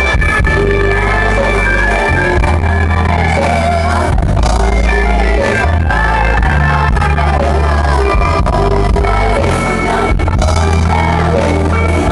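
Live pop-rock band playing loudly with a heavy bass line while a female singer sings into a handheld microphone.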